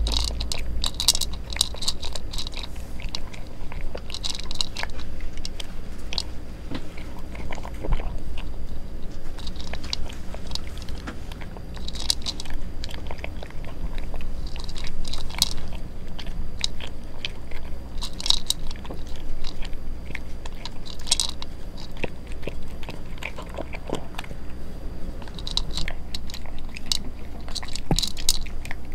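Brown tabby cat eating dry kibble from a glass bowl: short bouts of crisp crunching bites every few seconds, with gulping swallows as it bolts the kibble nearly whole.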